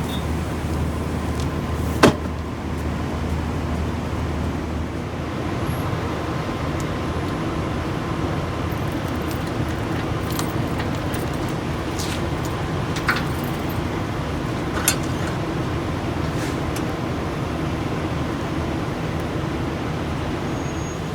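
Semi truck's diesel engine idling steadily, with a few sharp metallic clinks: one louder about two seconds in and a few smaller ones later.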